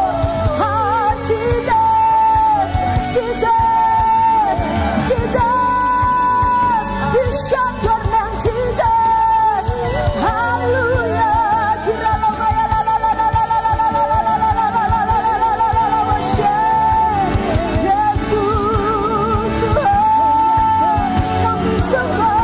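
Live worship music: a woman singing long held notes with vibrato over a full band of drums, bass guitar and keyboard.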